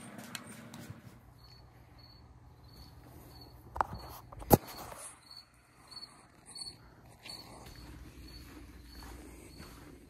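Crickets chirping in an even rhythm, about two to three high chirps a second, under rustling from the camera being handled. Two sharp knocks come about four seconds in, the second much the louder.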